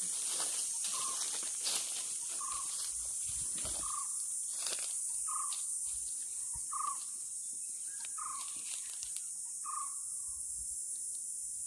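A steady high insect buzz, with a bird repeating one short hollow call about once a second. A few brief rustles or scuffs, likely footsteps on the trail, come in the first half.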